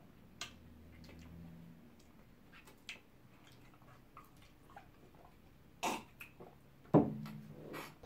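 Quiet eating by hand: scattered faint lip smacks, finger-licking and chewing clicks, with one loud sharp thump about seven seconds in.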